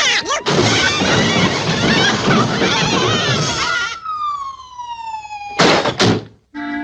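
Cartoon sound effects: about three seconds of chaotic squawking and clatter, then a long falling whistle, ending in two loud crashing thuds about half a second apart.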